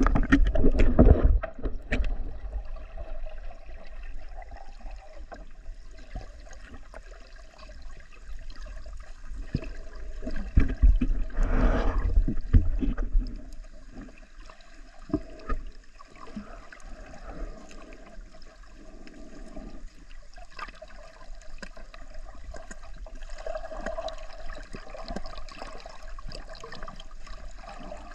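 Water heard through a submerged camera: a muffled, continuous rushing and gurgling, with loud low rumbling surges about a second long at the start and again from about 11 to 13 seconds in.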